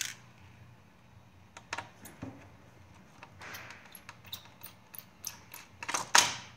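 Scattered small clicks, taps and clinks of laptop case parts and tools being handled during disassembly, with a louder clack about six seconds in.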